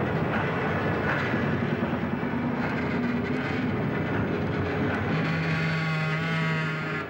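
Clay-powder sieving machine with a belt-and-gear drive running, a steady dense mechanical noise. A steady hum joins about five seconds in and stops just before the end.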